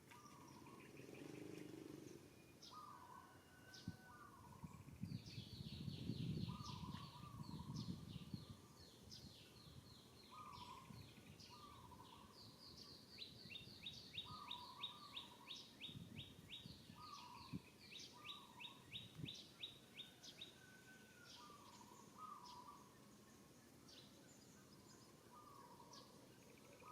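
Faint outdoor birdsong. A short two-note call repeats every second or two, and a rapid high-pitched trill of ticks runs through the middle. Low rumbling noise swells for a few seconds early on.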